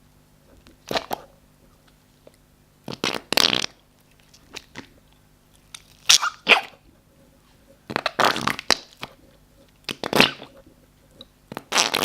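Slime squeezed and pressed so that trapped air squelches out in fart-like noises: a string of short bursts every second or two.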